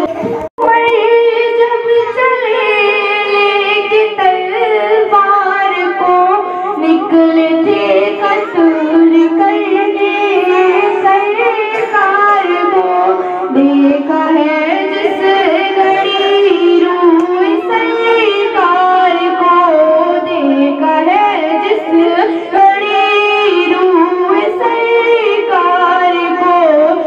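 A female voice singing a naat, an Urdu devotional poem in praise of the Prophet, in a continuous, ornamented melodic line. The sound cuts out briefly about half a second in.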